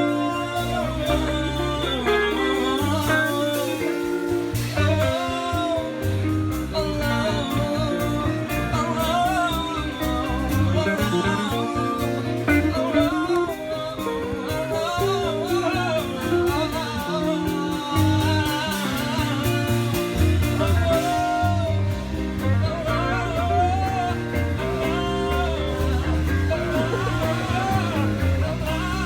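Background music: a song with guitar, a bass line and a singing voice.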